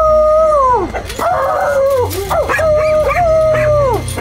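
Dog howling in two long drawn-out notes, the first falling off at its end, with a few short yips and barks between them.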